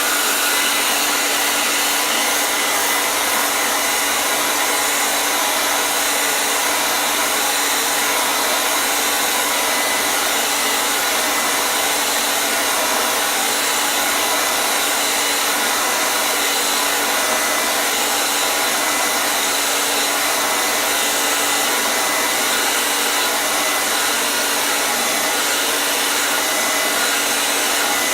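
Hair dryer running steadily: an even, unbroken rushing noise with a faint steady hum, used as white noise to soothe a baby.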